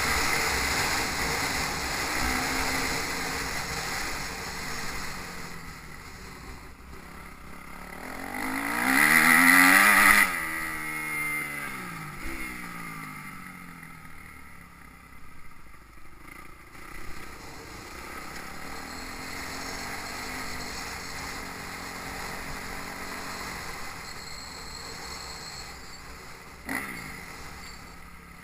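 Motocross bike engines revving around a dirt track. One bike passes close about nine to ten seconds in, the loudest moment, and its pitch drops as it moves away. Wind noise sits underneath.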